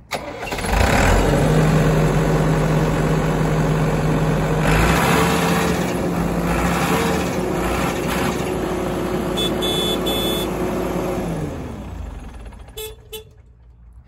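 A New Holland 675E backhoe loader's diesel engine cranks and starts, runs steadily with a couple of brief revs, then is shut off near the end. A horn honks briefly while it runs.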